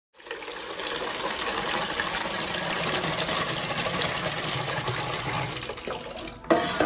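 Water pouring in a steady stream into a metal rice-cooker pot as it fills. A single sharp knock comes near the end.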